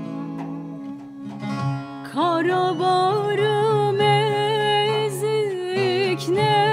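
Bağlama playing plucked notes over a sustained low drone. About two seconds in, a woman's voice enters singing a Turkish folk song (türkü) in an ornamented, melismatic style, and the bağlama carries on beneath her.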